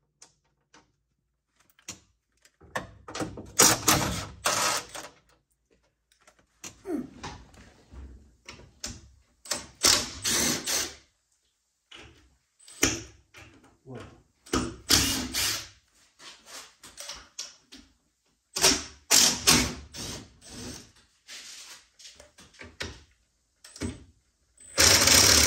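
Cordless drill-driver running in short bursts, about half a dozen runs a few seconds apart, backing out the small screws that hold the UTV's headliner and steel roof.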